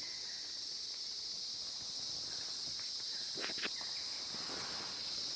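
Steady high-pitched insect chorus, with two quick clicks about three and a half seconds in.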